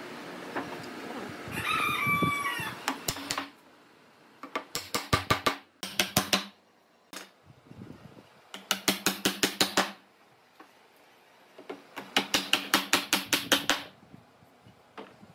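A rooster crows once, briefly, about two seconds in. After it come several bursts of rapid, even tapping, about eight knocks a second, that start and stop again three or four times.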